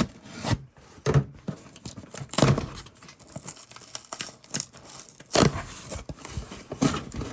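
Cardboard LEGO set box being opened at its glued bottom flaps: cardboard tearing and crinkling, with irregular clicks and knocks of handling.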